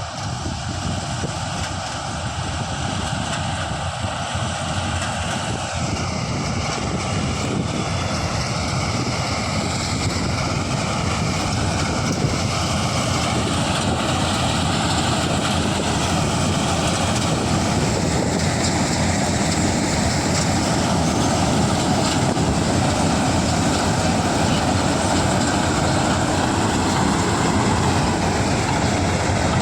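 Kartar 4000 combine harvester running while cutting a mung bean crop: a steady engine-and-machinery drone that grows gradually louder.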